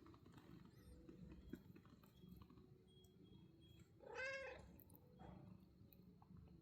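A domestic cat gives one short meow about four seconds in, rising and then falling in pitch, over faint low background noise.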